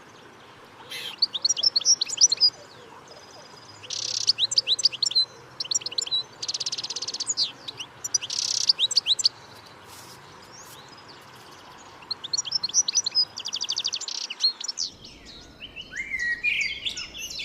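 Parrot chirping in repeated bursts of quick, high chirps with short pauses between them; near the end the calls turn to lower, sliding notes.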